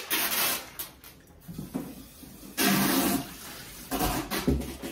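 Newspaper crumpled and rustled in two short bursts while glasses are wrapped for packing, with a few light knocks near the end.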